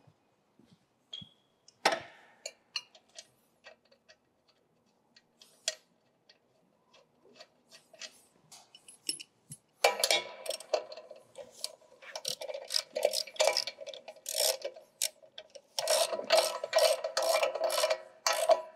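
Ratchet wrench clicking rapidly as it tightens the retaining nut on a Tru-Vee opener blade, in two runs: one starting about ten seconds in and another near the end. Before that, only a few scattered clinks and knocks.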